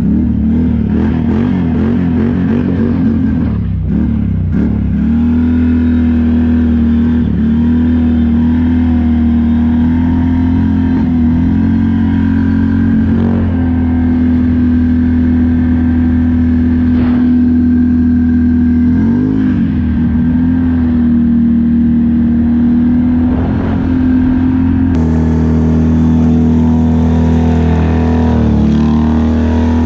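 Can-Am Outlander ATV engine running at high, mostly steady revs while its wheels spin and slide on bare lake ice, the revs wavering up and down a few times. Near the end the engine is heard from farther away.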